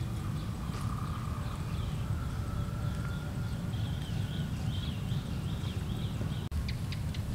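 Outdoor ambience: a steady low rumble with a small animal's short high chirping call repeated a few times a second through the middle, and a brief gap near the end.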